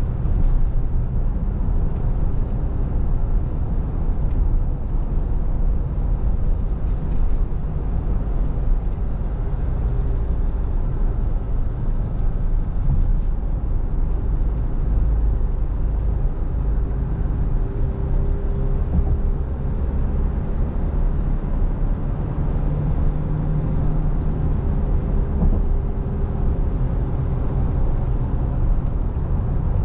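Cabin noise of a Nissan Navara pickup at road speed: a steady low rumble of tyres and road, with the 2.5-litre diesel engine droning underneath. A faint hum comes and goes through the middle.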